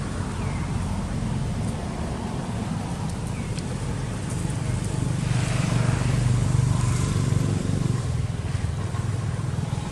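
A motor vehicle's engine running steadily with a low hum, growing louder for a couple of seconds around the middle.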